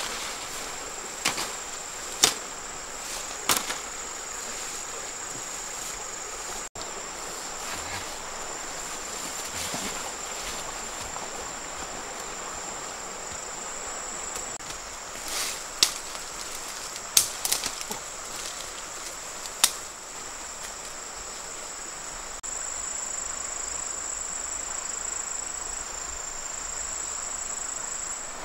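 Steady high-pitched drone of insects in the forest, with a few sharp snaps or knocks: three or four in the first few seconds and another cluster about halfway through.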